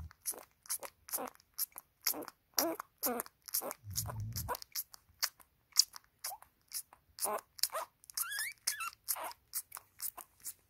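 Shar-pei puppy suckling at its mother's teat: a steady run of wet smacking clicks, about three a second. There is a short squeaky whine about eight seconds in.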